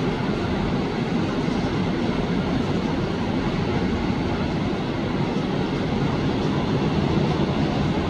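Ocean surf washing in along the beach: a steady, even rushing noise with no separate wave breaks standing out.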